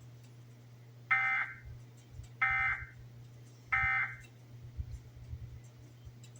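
Emergency Alert System end-of-message (EOM) data tones: three short, identical bursts of harsh, buzzy digital chirping, about a second and a half apart, signalling the end of the alert. A steady low electrical hum sits under them.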